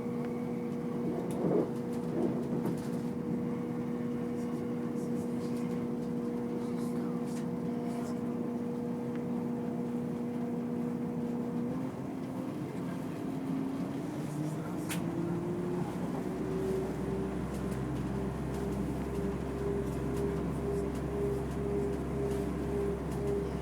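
A vehicle's steady mechanical drone that rises in pitch about twelve seconds in and settles on a higher, faintly pulsing tone with a low hum beneath.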